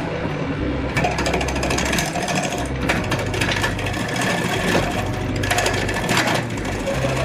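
Wood lathe spinning a wooden blank while a turning tool cuts into it: a rough scraping that swells and eases in passes.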